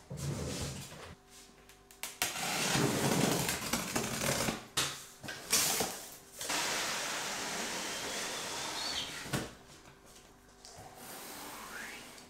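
Cardboard rustling and scraping as a shipping carton's flaps are opened and a boxed blender is slid out of it, with a few knocks of cardboard against cardboard.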